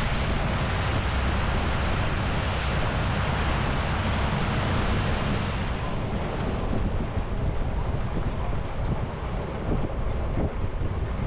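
Wind rushing over the microphone on a moving boat, with water rushing past and a steady low rumble; the higher hiss eases about six seconds in.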